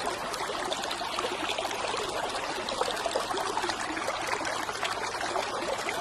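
Steady running water, like a trickling stream.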